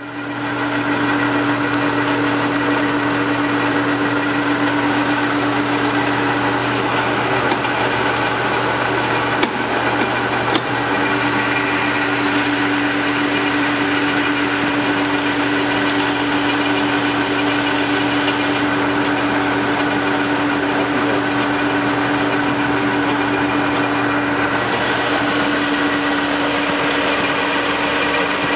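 1989 Nardini SZ2580T engine lathe running under power: its 12-horsepower motor and headstock gearing give a steady hum and whine that comes up to speed within the first second. A couple of light clicks come about ten seconds in, and one of the steady tones drops out near the end.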